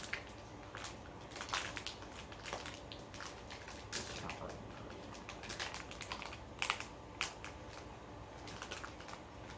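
Plastic packaging being handled and opened, with irregular crinkling rustles and scattered sharp clicks.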